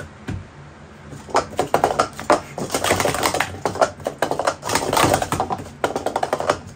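Wooden sport-stacking cups clacking rapidly against each other and the mat as a full cycle is stacked up and brought down, in dense runs of sharp clicks starting about a second in.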